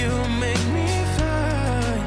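Background pop music with a sung vocal line over bass and a steady drum beat.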